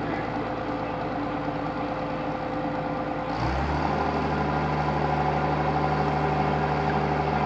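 Travel lift's engine running steadily under a hoisted yacht, with a low, even hum; about halfway through its note changes abruptly and it gets slightly louder.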